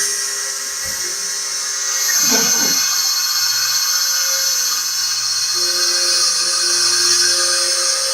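CNC milling spindle running at high speed: a steady, high-pitched whine with a hiss of cutting. A brief lower, uneven sound comes in about two and a half seconds in.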